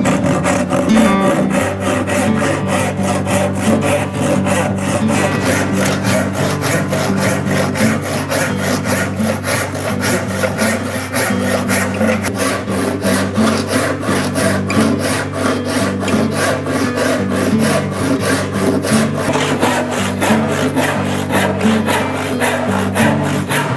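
Hand-sawing wood with a bow saw: even, repeated push-and-pull strokes of the blade through the timber, over background music.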